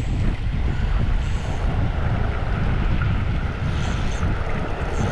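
Wind buffeting the microphone: a loud, uneven low rumble, with a few short, faint high-pitched chirps.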